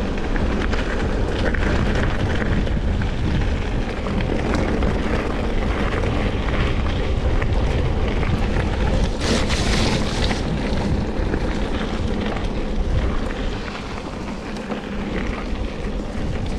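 Wind buffeting the action camera's microphone on a fast mountain-bike descent, over the rumble and rattle of the bike's tyres on a dirt and gravel track. A brief hissing rush comes about nine seconds in.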